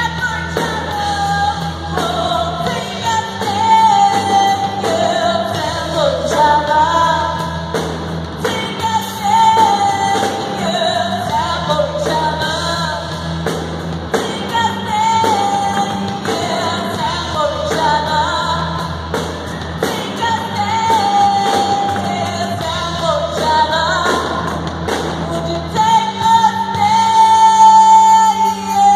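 Live rock music from electric bass and drum kit with singing over them, echoing in a large hall. A long sung note is held near the end.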